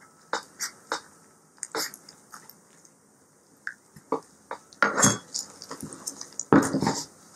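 Kitchen knife cutting through a raw chicken's breastbone cartilage on a plastic cutting board. A few sharp clicks come in the first two seconds, then louder knocks about five seconds in and again near the end.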